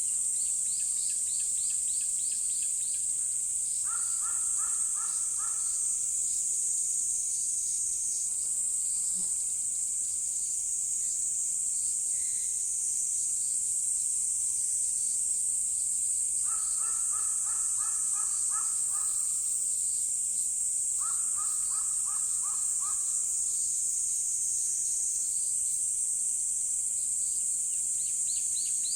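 A continuous high-pitched insect drone, with three bursts of quickly repeated calls from an animal, the first about four seconds in and two more in the second half. Faster high chirps are also heard at the start and near the end.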